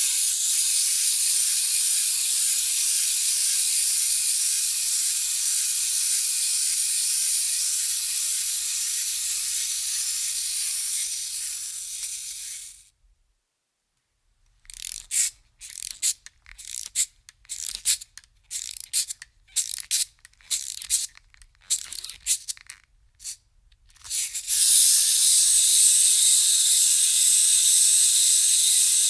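Wind-up toy's spring-driven clockwork running with a steady high whir that trails off and stops about 13 seconds in. After a short silence the toy is wound in a run of short, uneven clicking bursts, and the whir starts again near the end.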